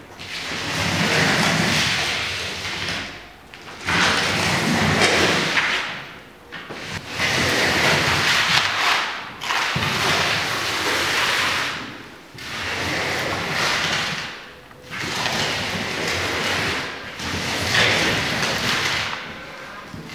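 Rough scraping on a large sheet of paper as a hand-held lump drags soil across it in circles. It comes in long swells about every two to three seconds, each stroke rising and fading with a short lull between.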